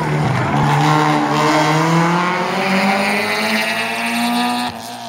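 Rally car engine driven hard, its pitch falling and rising again as the throttle is worked. The sound drops suddenly in loudness near the end.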